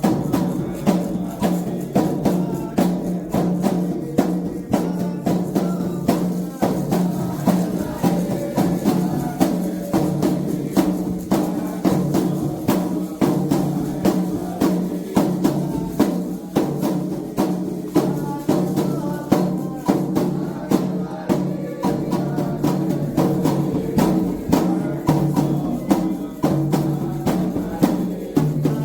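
Candomblé ritual drumming: a toque played on hand drums in a steady repeating rhythm, with sustained low tones under the strokes.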